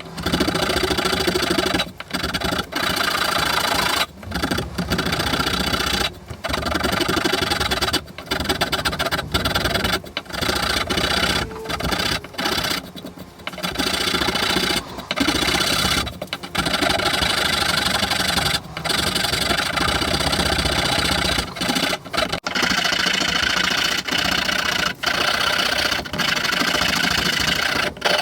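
A hand rasp scraping the wooden handle of a Husqvarna axe, carving a textured grip in steady back-and-forth strokes with short breaks between them.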